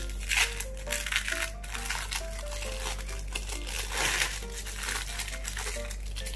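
Thin plastic wrapper of an individually wrapped processed cheese slice crinkling in irregular bursts as it is peeled open, with light background music playing a bouncy melody underneath.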